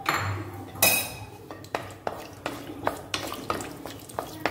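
Cashew nuts frying in oil and ghee in a kadai while a wooden spatula stirs them, knocking and scraping against the pan many times, with one louder knock about a second in.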